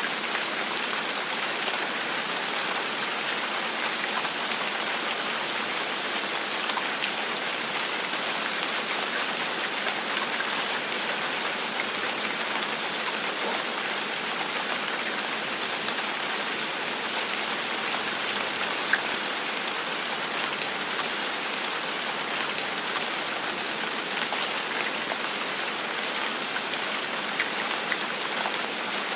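Gentle rain falling steadily: an even hiss with scattered drop ticks, one sharper tick about two-thirds of the way through.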